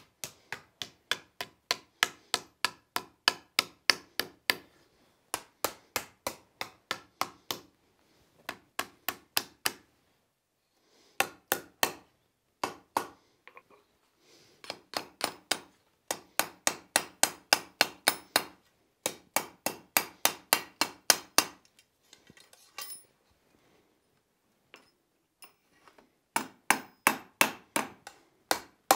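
Hand hammer striking a hot steel strap on an anvil to roll up a hinge eye and size it around a pin: runs of quick, evenly spaced blows, about four a second, broken by short pauses.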